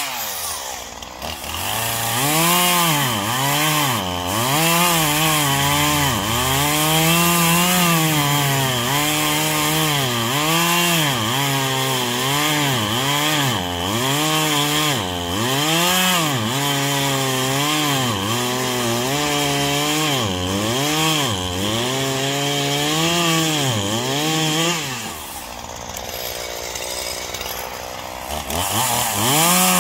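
Poulan Pro 5020 two-stroke chainsaw (50cc, 20-inch bar) bucking a pine trunk: the engine runs at full throttle, its pitch sagging and recovering over and over as the chain bites into the wood. About 25 seconds in it drops to a lower, quieter idle, then revs up again near the end.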